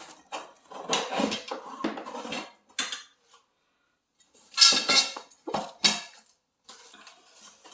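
Parts of a hydroponic tower kit clattering and knocking together as they are handled and set out, in irregular bursts with a short pause in the middle and the loudest clatter a little past halfway.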